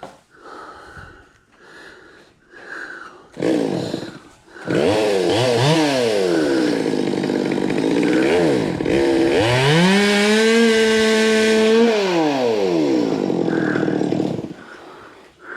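Chainsaw starting up a few seconds in and revving up and down several times. It then holds at high revs for a couple of seconds before dropping back to idle and stopping near the end.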